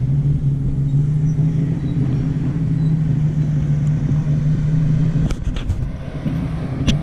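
An engine running steadily with a low hum over rumble. The hum drops out about five seconds in, followed by a few sharp clicks near the end.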